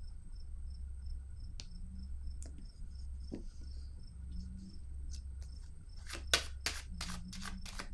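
High, evenly spaced chirping like a cricket's, about four chirps a second, over a low steady hum; about six seconds in, a quick run of sharp clicks.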